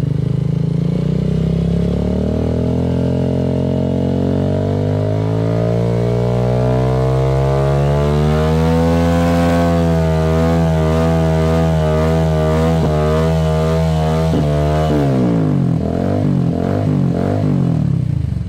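Single-cylinder engine of a Bajaj Avenger Street 150 running through an aftermarket Akrapovic-branded slip-on muffler. The revs climb slowly and hold high, then about fifteen seconds in drop back into several quick rises and falls.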